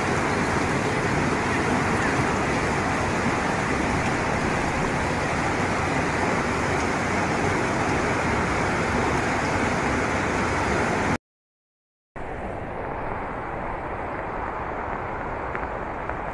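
Floodwater rushing down a street, a loud, steady rush of water. It cuts off abruptly about eleven seconds in, and after a second of silence a quieter steady rushing noise follows.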